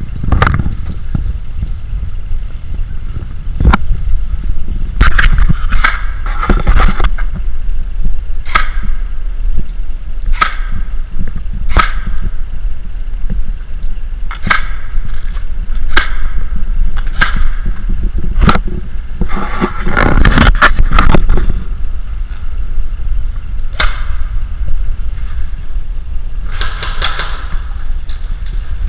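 Airsoft rifles firing single shots every second or two, with a few quicker strings of shots about five seconds in, near the middle and near the end, over a steady low rumble.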